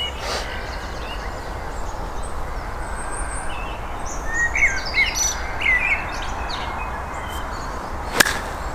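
Birds chirping on and off, then a single sharp click near the end: a 60-degree wedge striking a golf ball on a pitch shot.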